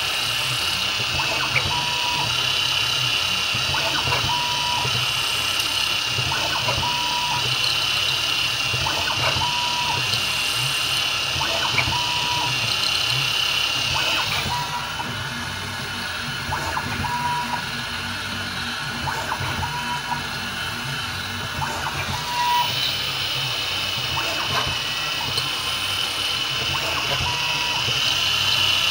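CNC milling machine cutting a plastic part with an end mill: a steady high whine with scattered clicks of chips, and short, regularly repeated beep-like tones every second or two. The whine fades out for several seconds around the middle, then returns.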